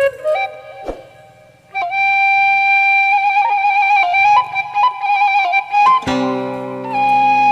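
Instrumental music: a flute playing a slow melody with wavering held notes over plucked string accompaniment, in the Sundanese style. It drops away briefly about a second in, and lower sustained notes join near the end.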